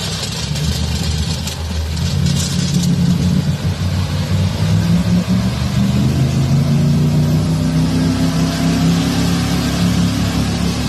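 Old pickup truck's engine revving hard under load as it ploughs through deep mud, tires spinning and throwing mud. The engine note climbs a little past the middle, with splashing and spray loudest in the first few seconds.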